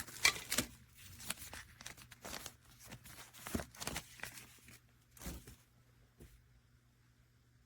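Irregular rustling and crinkling handling noises, busiest at first and thinning out over the second half.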